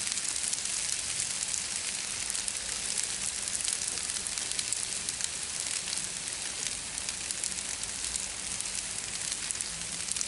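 Stir-fry sizzling steadily on a Blackstone flat-top griddle, a continuous hiss with fine crackling throughout.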